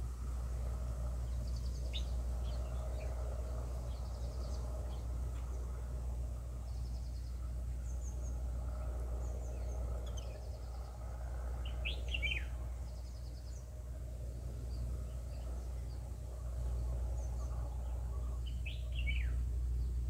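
Small songbirds chirping in short scattered high calls, two of them quick falling chirps. Rapid high trills repeat every couple of seconds over a steady low rumble.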